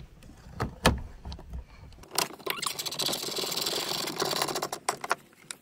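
A few knocks of handling, then for about two and a half seconds a dense, rapid clatter as a tool runs in the fuse box mounting bolt.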